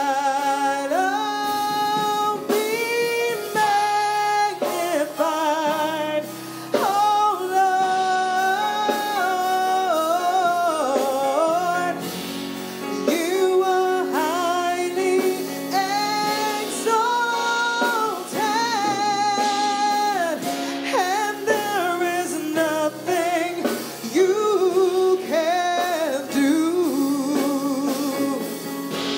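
A woman sings a worship song with vibrato into a microphone, accompanied by a Yamaha MOXF8 keyboard.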